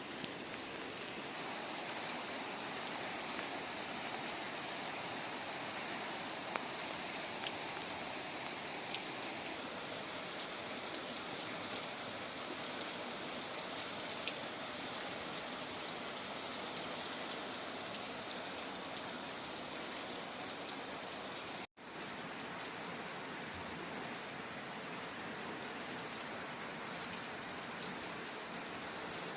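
Steady rushing water, rain falling or a stream flowing, with scattered small ticks and drips. The sound cuts out for an instant about two-thirds of the way through.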